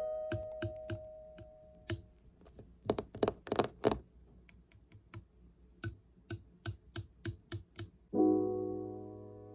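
Soft piano-like music notes fading out, then irregular clicks of keys being typed on a keyboard for several seconds. A new sustained chord comes in near the end.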